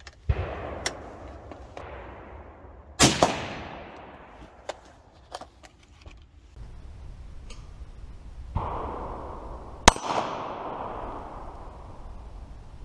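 A 20-inch AR-15 firing 55-grain soft-point 5.56 rounds at a steel target. Four sharp reports come over the stretch, each trailing off in a long echo, and the sharpest comes about ten seconds in.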